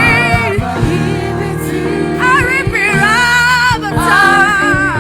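Live gospel worship singing: a lead voice sings a chant line and a choir or congregation answers it, over a band accompaniment with a steady beat.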